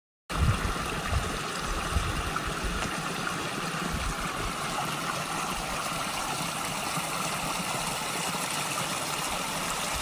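Small mountain brook trickling over stones through grass: a steady, even rush of running water.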